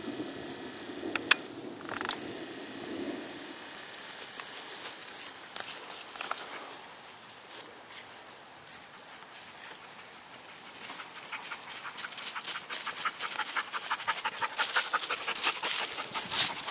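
A dog panting fast, close up, in quick even breaths that start about ten seconds in and grow louder toward the end.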